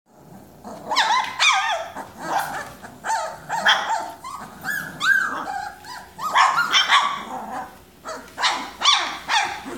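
A litter of young puppies whining and yelping: short high-pitched cries that rise and fall in pitch, one or two a second and often overlapping.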